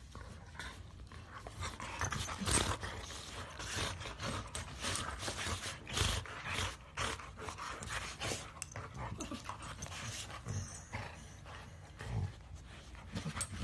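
Two Labrador retrievers play-fighting, mouthing at each other's faces: an irregular run of short breathy huffs and scuffles, quieter for the first second or two.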